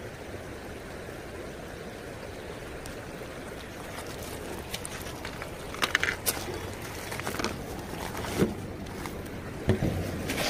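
Steady rush of the flowing river, then from about halfway on, clicks and crunches of river pebbles shifting under feet in sandals.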